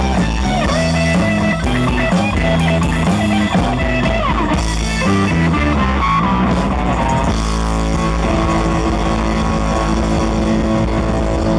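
Live rock band: an electric guitar plays a busy lead line with string bends over a drum kit, then settles onto long held notes about seven seconds in.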